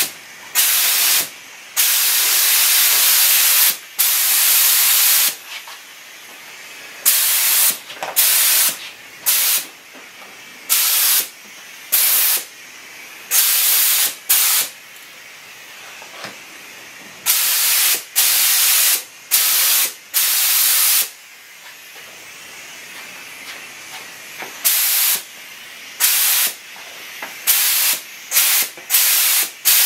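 Compressed-air gravity-feed paint spray gun spraying in repeated trigger-pull bursts of hiss, about twenty in all. Most bursts are short, and a few near the start and around two-thirds of the way through run two to three seconds, with a fainter hiss between them.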